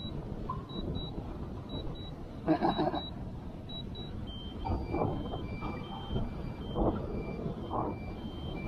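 DJI drone app's low-battery warning beeping: short high beeps in quick pairs, changing about four seconds in to a repeating run of beeps at three alternating pitches, the alarm for a critically low drone battery. Strong wind rumbles on the microphone underneath, with a few louder gusts.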